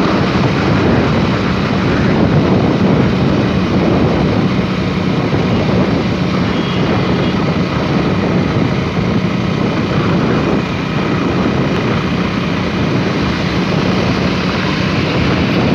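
Steady engine and road noise from a moving vehicle, with a constant low hum throughout.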